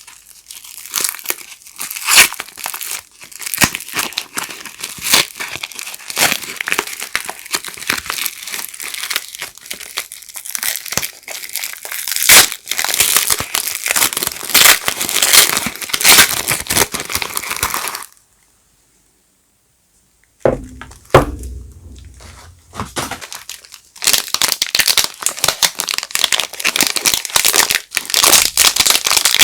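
Soap wrappers crinkling and tearing as bars of soap are unwrapped by hand. It breaks off for about two seconds about two-thirds through, then comes some low handling thumps, then more crinkling.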